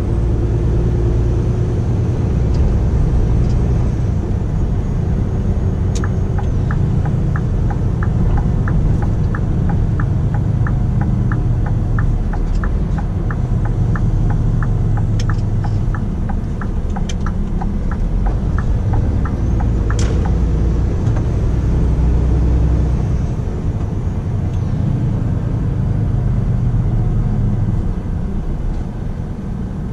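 Scania R450 truck's diesel engine running on the road, a steady low rumble. A turn indicator ticks about three times a second from about six seconds in until about twenty seconds in.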